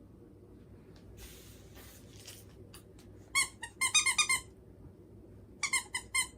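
A frightened pet cries in short, high-pitched squeaks: one, then a quick run of about six, then about four more near the end. The pet is afraid of the hair dryer.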